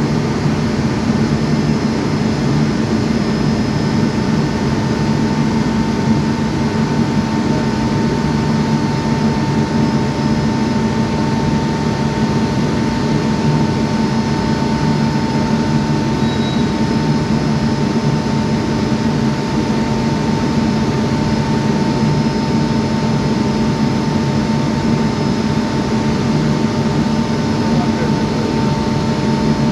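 Kirloskar industrial air compressor running steadily, a constant loud machine hum with a held whine.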